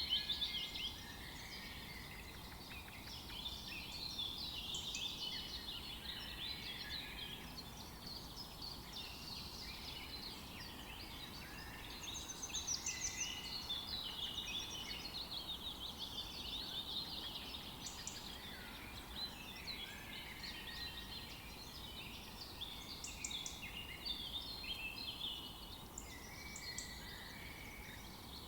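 A flock of house sparrows chirping continuously, many short cheeps overlapping at once.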